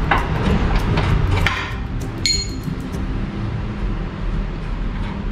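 Small metal hand tools and parts clicking and clinking against each other, with one clear ringing metallic clink about two seconds in, over a steady low hum.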